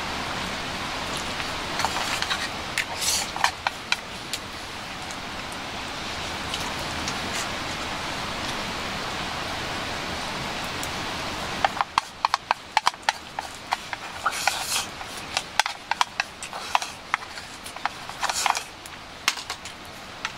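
Chopsticks and dishes clicking and knocking: small sharp taps of chopsticks on an aluminium mess tin and a wooden plate, a few early on and then many in quick succession over the last eight seconds. Under the first twelve seconds or so runs a steady hiss that cuts off abruptly.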